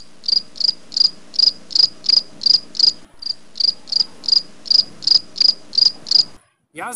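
Cricket chirping sound effect, the comic cue for an awkward silence: short, high, evenly spaced chirps about three a second, with one brief break midway, cutting off suddenly near the end.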